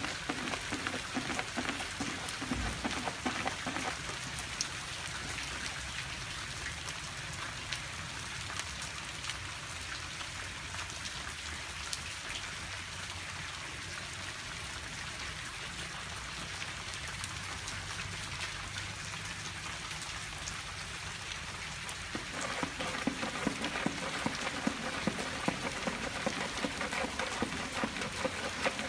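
Rain falling steadily, a dense patter of many small drops; the patter grows louder and coarser about three-quarters of the way through.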